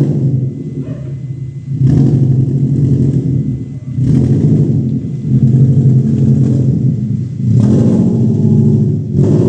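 Car engine revved through a replica Kakimoto Regu.06&R aftermarket exhaust muffler. It is blipped up about four times, each rev jumping in quickly and holding for a second or two before easing off.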